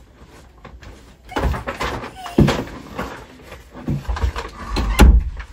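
A door opening, then shopping bags rustling and bumping as someone walks in carrying them, with several knocks; the loudest knock comes about five seconds in.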